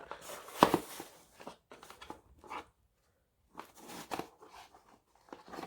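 Packaging being opened by hand: paper and cardboard crinkling and rustling in short spells, with one sharp crunch a little over half a second in and a brief quiet pause around the middle.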